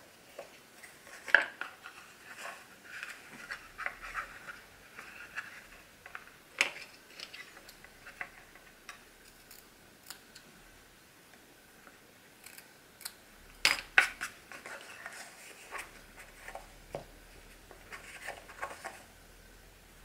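Small scissors snipping linen tape, among irregular light taps, clicks and paper rustles of a book block and its boards being handled on a cutting mat. The sharpest clicks come a little past the middle.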